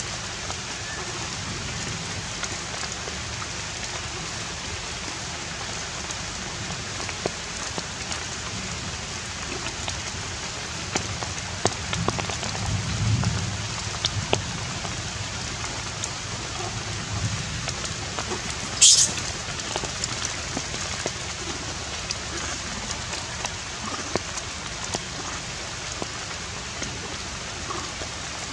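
Steady outdoor hiss like light rain, dotted with faint scattered ticks, with a brief faint low murmur near the middle and one short, sharp high-pitched squeak about two-thirds of the way through.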